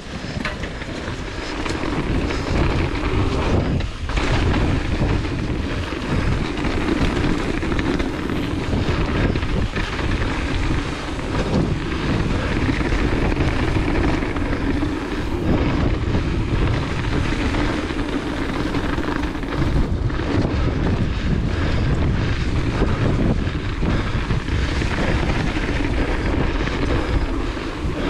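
Mountain bike descending a dirt trail at speed: wind rushing over the action camera's microphone and tyres rolling over the ground, with frequent knocks and rattles from the bike over bumps.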